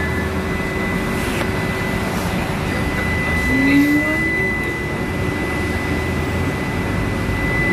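Steady interior noise inside a Trolza-5265.00 "Megapolis" trolleybus: a continuous hum. A thin, high, steady tone comes in about two seconds in and holds. A short rising tone sounds near the middle.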